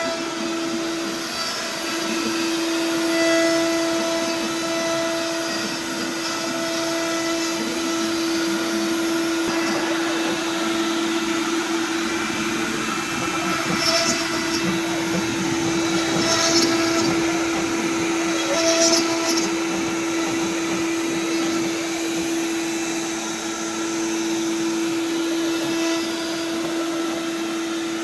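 Inventables X-Carve CNC router's spindle running steadily while carving wood, a constant whine, with a few brief harsher cutting bursts in the middle.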